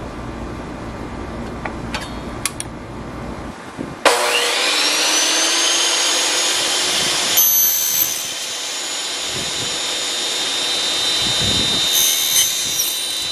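Table saw fitted with an aluminum-cutting blade, switched on about four seconds in, its motor whine rising as it spins up, then running steadily. It briefly bites into white aluminum angle twice, once near the middle and once near the end. A few light clicks come before it starts.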